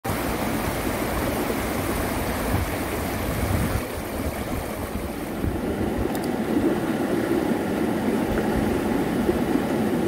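Shallow mountain river rushing steadily over rocks and stones. About four seconds in the hiss drops and the sound turns lower and fuller, as the water washing over stones close by takes over.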